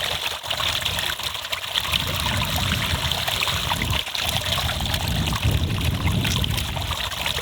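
Stream water running and trickling steadily over rocks, the stream swollen after rain.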